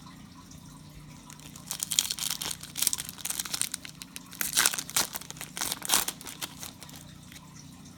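Foil wrapper of a Prizm football card pack crinkling and tearing as it is ripped open, a run of crackles lasting about four seconds.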